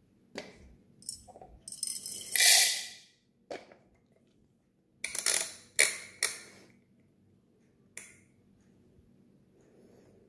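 Whole roasted coffee beans poured from a small steel cup into a burr grinder's plastic hopper: a rattling pour of about a second and a half after a few light clicks. A few seconds later come several sharp plastic and metal knocks and clicks as the grinder's hopper and dial are handled, then a single click near the end.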